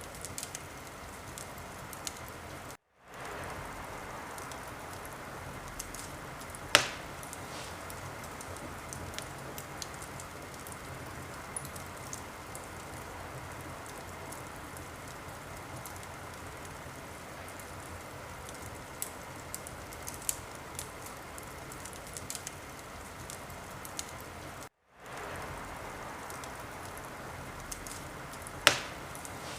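Wood fire crackling in a fireplace: a steady hiss with scattered small crackles and two sharp, loud pops, one about 7 seconds in and one near the end. Twice, about 3 seconds in and about 25 seconds in, the sound cuts out for a moment and then fades back in.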